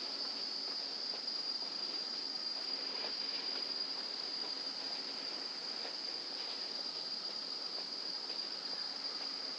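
Insects calling in a steady, unbroken high-pitched drone that does not vary over the whole stretch, over faint outdoor background noise.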